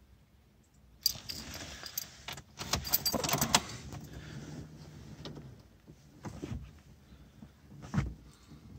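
Car keys jangling and scraping as the key goes into the ignition lock and is turned to switch on the ignition; the diesel engine is not yet cranking. Quieter clicks follow, then a single dull knock near the end.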